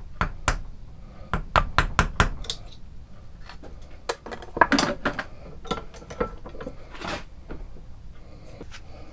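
Hammer tapping a small wooden insert clamped in a steel bench vise: a quick run of about seven sharp knocks with a metallic clink, then scattered knocks and scrapes as tools and the vise are handled.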